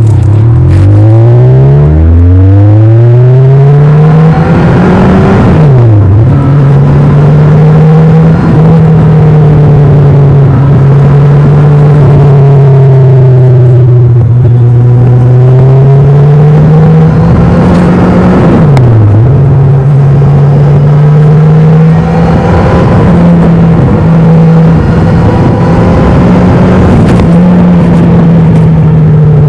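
Kawasaki Ninja 1000's inline-four engine, stock exhaust, under way: revs climb quickly through the gears at the start, then hold mostly steady at cruise, with a couple of brief drops and recoveries in revs about 6 and 19 seconds in.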